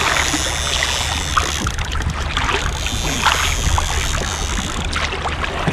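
Wind rumbling on the microphone and choppy sea water washing against a kayak, with scattered light clicks and knocks as a multiplier fishing reel is wound in.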